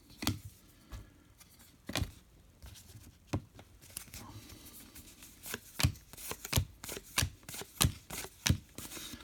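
Trading cards being handled and flipped one after another: a string of short, irregular snaps and slides of card stock, more frequent in the second half.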